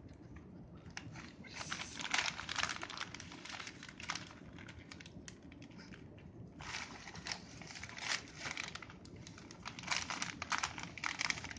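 Gift-wrapping paper crinkling and tearing as a Chihuahua rips into a wrapped present, in several bursts.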